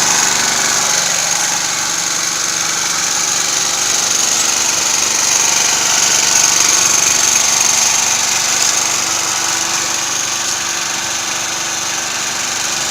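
Small portable generator's engine running steadily on LPG (cooking gas) through a dual-fuel gas carburetor.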